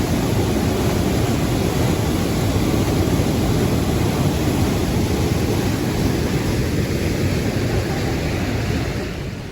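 Waterfall: a steady, loud rush of falling water close to the microphone.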